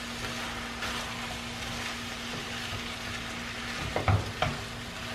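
Chopped tomatoes, peppers and onion sizzling as they sauté in a frying pan while being stirred with a silicone spatula, with two brief knocks about four seconds in.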